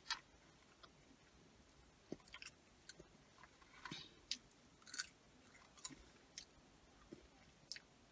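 Faint chewing of French fries: soft mouth clicks and small crunches at irregular intervals.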